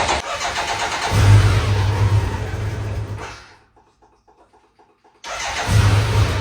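Motorcycle engine cranked and catching twice, running a couple of seconds each time before dying away. It won't take throttle, which the mechanic puts down to a fuel-supply problem.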